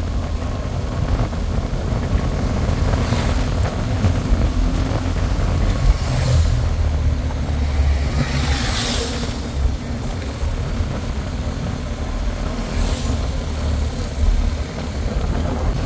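Motorcycle riding on a gravel road, heard from the rider's own bike: a steady low rumble of engine and wind on the microphone, with oncoming motorcycles passing close by in four swells, the biggest a group about nine seconds in.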